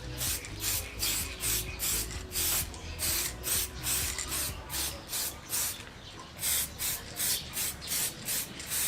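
Spray paint hissing from the nozzle in short repeated bursts, about two or three a second, with a brief pause about six seconds in, as the motorcycle frame is painted.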